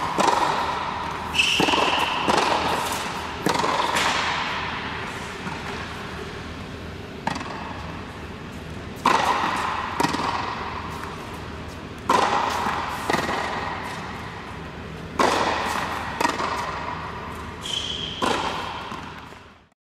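Tennis ball struck by rackets and bouncing on a hard court during a baseline rally, each hit followed by a long echo in the large indoor hall. The sound fades out near the end.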